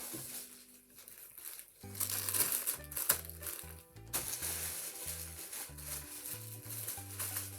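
Plastic packaging crinkling as toys are handled, over background music whose low bass line of short stepping notes comes in about two seconds in.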